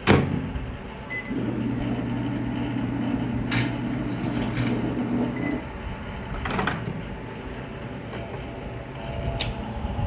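A Panasonic microwave oven's door shuts with a knock, then the oven runs with a steady hum for about four seconds, with a brief snap partway through, and stops. Sharp clicks follow, a little after the hum ends and again near the end.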